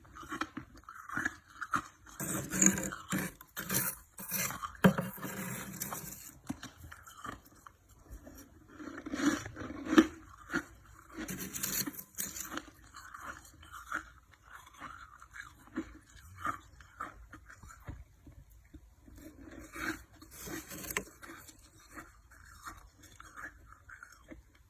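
Freezer frost being scraped and chewed: irregular crunching and scraping strokes, denser and louder in the first half, sparser toward the end.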